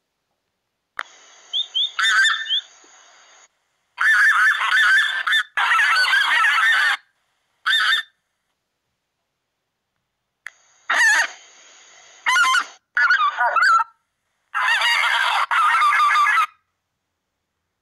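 Recorded goose calls played back from a goose-call app: first bean goose, then greater white-fronted goose. The honking calls come in about eight separate clips, each up to about two seconds long, with silence between them.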